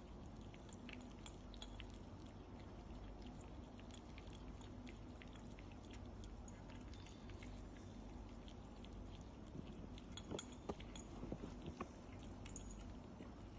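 Cats chewing and licking wet food from bowls: faint, scattered wet clicks and smacks, with a run of louder clicks about ten to twelve seconds in.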